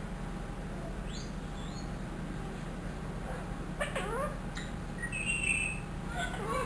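Ringneck parrot calling: two short high squeaks, then a cat-like meow imitation about four seconds in, followed by a high held note and a few rising chirps.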